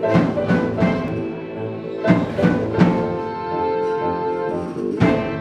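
A small band playing live: a drum kit's hits and cymbals over keyboard chords, with a long held chord through the middle before the drums come back in near the end.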